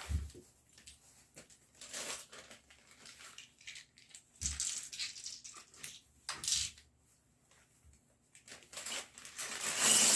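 Plastic Lego pieces being handled and rummaged through, in short irregular rustling clatters with a couple of dull knocks.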